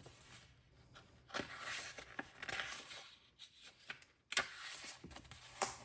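Soft paper rustling in two irregular spells as a picture book is handled, with a sharp click near the end.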